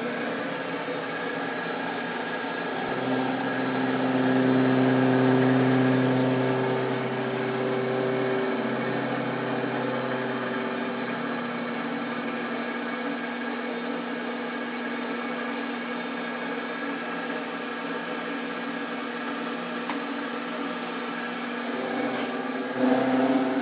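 Grizzly vertical milling machine running, its end mill cutting a steel plate: a steady motor and spindle hum with cutting noise, louder and deeper for several seconds a few seconds in. A brief louder noise comes near the end.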